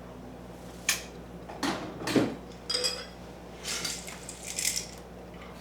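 Small metal Allen wrenches clinking and rattling against each other and a hard surface, about six short clinks over a few seconds, one with a brief metallic ring.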